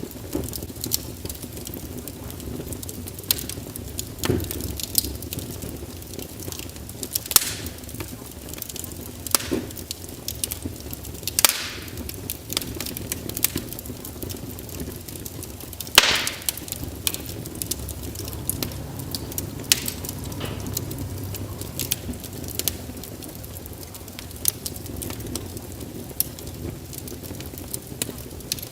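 Fire crackling in a fireplace: irregular sharp pops and snaps, a few of them louder, over a steady low background of the burning fire.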